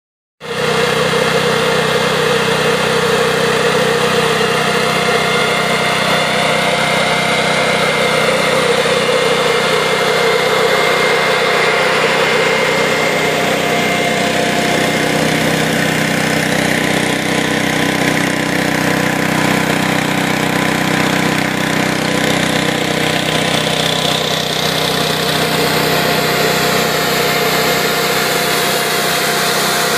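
Residential snowmaking fan gun running steadily: a constant fan drone with several steady hum tones under the hiss of water spray blown out in a plume.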